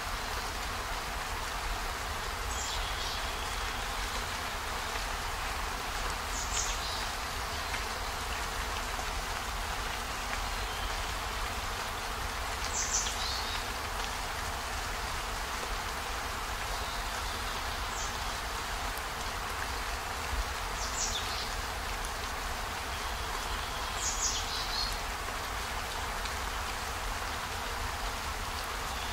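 Steady rain falling, an even hiss, with a short sharper splash standing out every few seconds.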